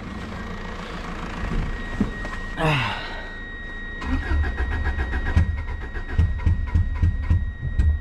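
Subaru Impreza flat-four engine cranking on the starter and sputtering unevenly as it tries to catch but does not run, from about halfway in until the cranking stops near the end. This is a heavy misfire, which the owner suspects comes from the spark plugs or plug wires.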